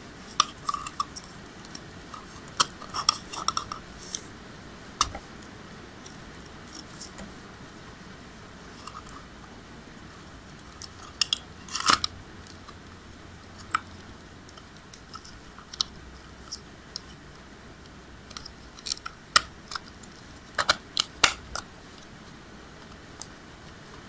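Scattered plastic clicks and knocks as the white casing of an Apple 85 W MagSafe charger is handled and fitted around its internal board, with louder clusters of clicks about halfway and near the end.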